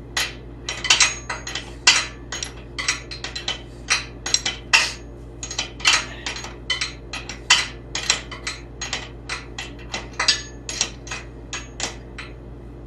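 Irregular run of light metal-on-metal taps and clinks, about three a second, some with a short ring, from steel suspension parts being worked loose on a car chassis. A steady low hum runs underneath.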